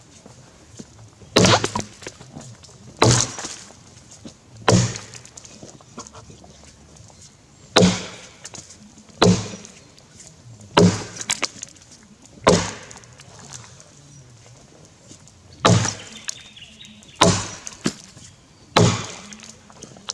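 Axe chopping into a Grey Gum log: about ten sharp strikes, one roughly every second and a half, with two short pauses between runs of blows.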